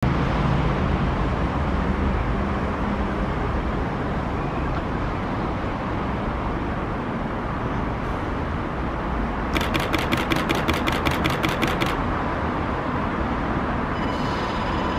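Steady outdoor noise at an elevated railway station platform, heavy at the bottom like wind on the microphone. Partway through comes about two seconds of rapid high-pitched ringing pulses, about five a second, and a steady high tone begins near the end.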